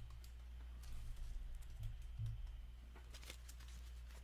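Light clicks and taps of opened trading-card packs and cards being gathered and set down on a tabletop, a handful of small knocks spread through, over a low steady hum.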